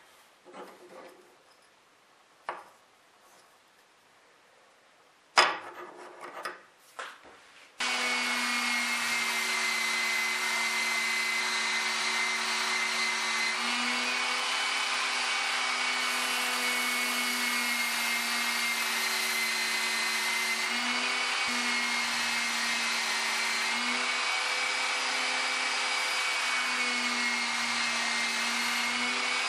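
A few light clicks, then, from about eight seconds in, a small bench belt sander runs steadily with a hum and hiss while a bison bone blank is ground against the moving abrasive belt.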